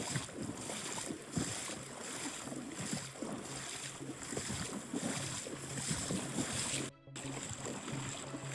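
River water and wind noise, with scattered small knocks.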